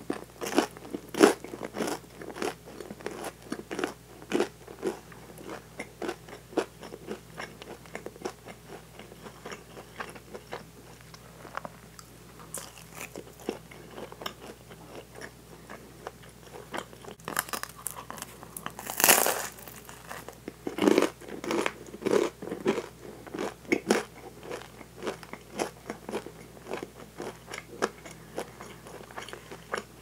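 Close-miked eating of a cheese-topped bread roll: crunchy bites into the crust and steady moist chewing with many small crackles, with a few louder bites about two-thirds of the way through.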